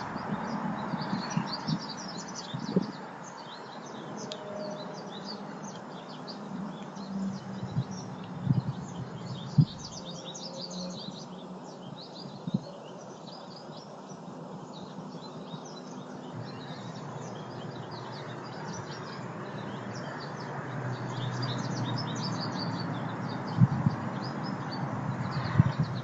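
Small songbirds at backyard feeders chirping and twittering, many short high chirps scattered throughout over a steady background hiss, with a few soft thumps.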